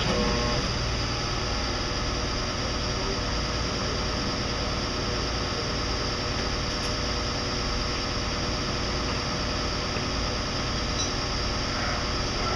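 Flatbed tow truck's engine running steadily, a low constant drone.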